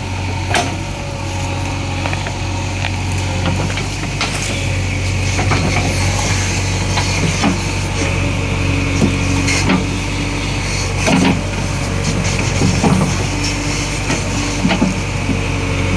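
JCB 3DX backhoe loader's diesel engine running steadily while the machine works, with scattered knocks and clanks.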